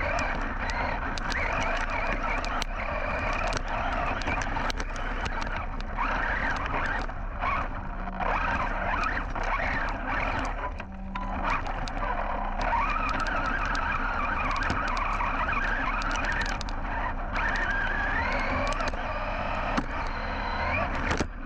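Team Associated Rival MT10 RC monster truck driving on a dirt trail. Its brushless motor whines up and down in pitch with the throttle, over many small clicks and scrapes from the tyres on dirt and stones.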